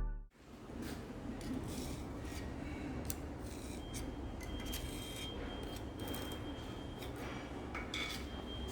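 Scattered metallic scraping and clicking over a steady low hum, with a faint steady high whine joining about four seconds in.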